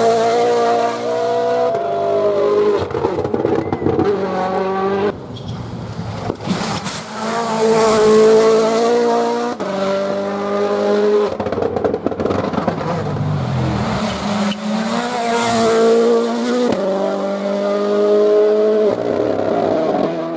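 Rally cars driven hard, engines at high revs with the pitch rising and falling through gear changes, in a series of short passes joined by abrupt cuts every few seconds.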